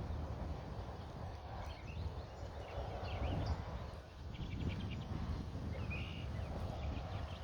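Wind buffeting the microphone in a low, uneven rumble, with birds chirping in short calls and a brief trill in the background.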